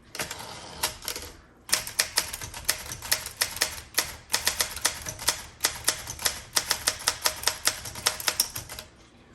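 Keys of a 1968 Olympia SM9 manual typewriter being struck in a steady run of sharp typebar clacks, about four a second, after a quieter first second and a half.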